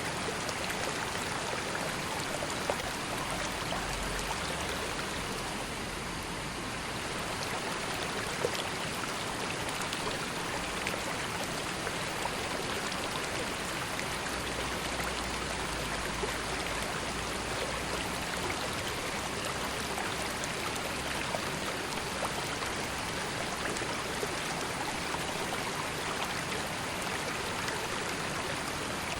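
River water flowing steadily, a continuous burbling rush with small splashes and droplets.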